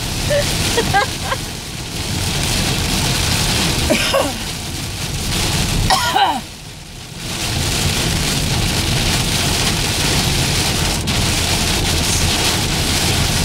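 Heavy rain on a moving car's windshield and roof, heard from inside the car: a loud, steady hiss that dips briefly a little past halfway.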